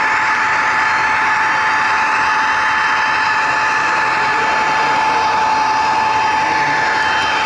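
HO scale model train running along the track, heard close up from a camera riding on it: a steady small electric motor and gear whine over the rolling noise of the wheels on the rails.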